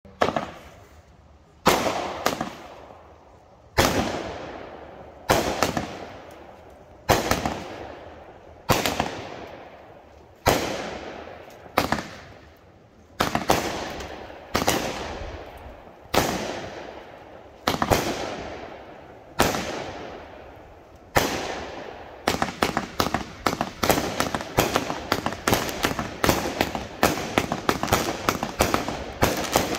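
A 500-gram, 36-shot consumer firework cake firing. Single shots go off about every one and a half to two seconds, each a sharp bang that trails off into a long fading crackle. From about two-thirds of the way through, the shots speed up into a rapid volley of several a second for the finale.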